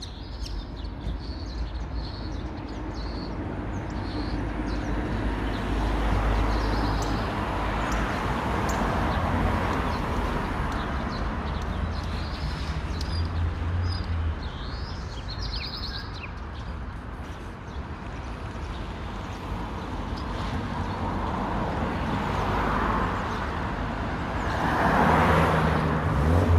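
Outdoor street ambience: cars passing by, swelling and fading a few times over a steady low rumble, with small birds chirping now and then.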